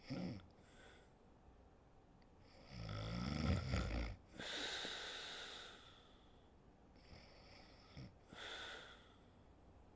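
Woman snoring in her sleep: a loud, low snore about three seconds in, followed by a long breathy breath, with shorter, softer breaths at the start and near the end.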